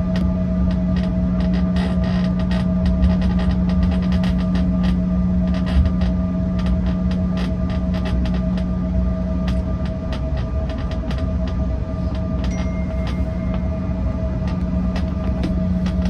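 Jet airliner cabin noise while taxiing: the engines' steady hum with a constant tone above it, a low rumble from the rolling gear, and frequent small clicks and creaks.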